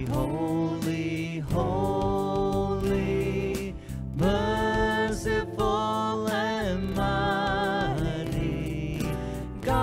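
Worship song: a man and a woman singing a slow hymn in long held notes over acoustic guitar, phrase by phrase with short breaths between.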